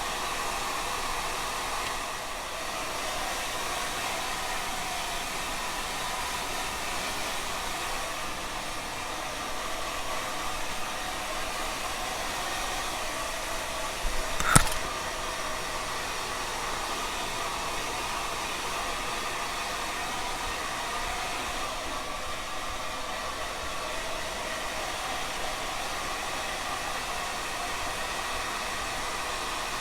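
Handheld hair dryer running steadily, blowing a freshly sprayed wig down flat. One sharp click about halfway through.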